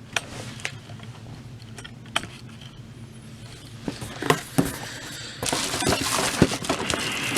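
Handling noise while unpacking a humidifier: a few light clicks and knocks of hard plastic parts, then about five seconds in a louder, steady rustle of packaging with clicks in it.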